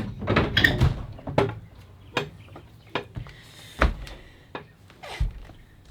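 A series of irregular knocks and clacks, busiest in the first second, then single strikes spaced under a second apart, with a brief hiss about three and a half seconds in.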